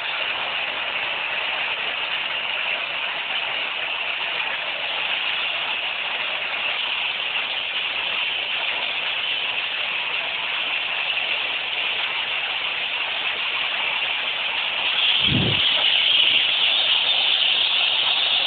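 Washing machine, with its timer removed, running at full speed with a heavy stone in the drum: a steady mechanical noise. A single low thump about fifteen seconds in, after which the noise gets louder.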